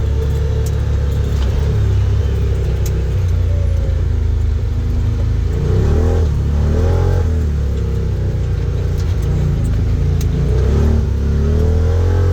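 Turbocharged Can-Am Defender Limited side-by-side's V-twin engine running hard under load, its pitch rising and falling as the machine accelerates and backs off, most clearly about six seconds in and again near eleven seconds.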